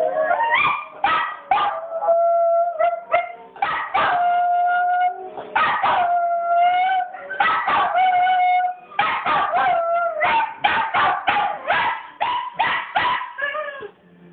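Small dog howling in response to wolf howls on a television: long held howls of a second or two mixed with quick runs of short yips and barks, the fastest run about two-thirds of the way through.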